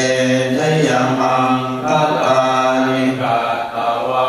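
Thai Buddhist temple chanting: voices reciting in a low, near-monotone drone, phrase after phrase with short breaks for breath.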